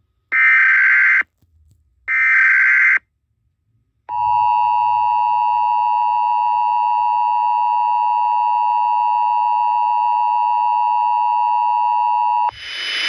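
Emergency Alert System tones: two short buzzy data-header tones about a second apart, then the steady two-tone attention signal held for about eight seconds. Near the end the attention signal cuts off abruptly and a loud hiss of static begins.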